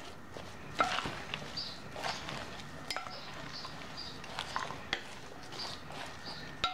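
Wooden salad fork and spoon tossing a lettuce salad in a glass bowl: leaves rustling, with scattered sharp clicks as the wooden servers knock against the glass.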